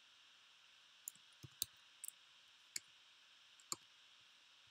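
Computer input clicks, about seven short sharp clicks spread irregularly from about a second in to near the end, over faint steady hiss.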